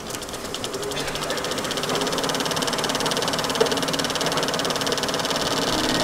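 Carbon-arc film projector running, its mechanism giving a rapid, even clatter of many ticks a second that grows louder over the first couple of seconds.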